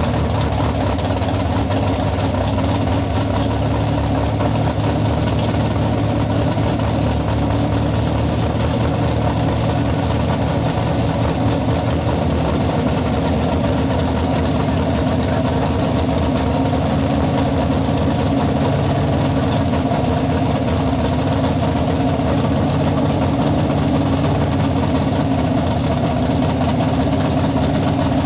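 Drag-race car's engine idling steadily and loudly, just after being started.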